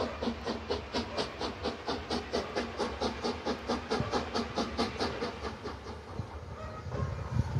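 Steam locomotive working under steam with a rapid, even exhaust chuff of about four beats a second. Near the end the chuffs fade and a low rumble of the train rises.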